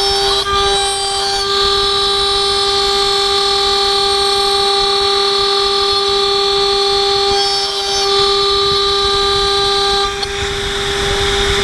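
HSD 10 hp CNC router spindle driving a spiral end mill through 6061-T6 aluminium plate, a loud, steady, high whine with several overtones that shift as the cut changes direction. Near the end the upper tones fade and a hiss rises.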